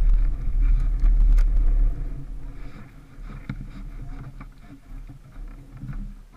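Wind rumbling on an onboard camera's microphone, heaviest in the first two seconds and then easing off.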